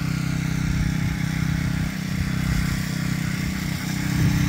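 Gas-engine pressure washer running steadily, a low, even engine hum.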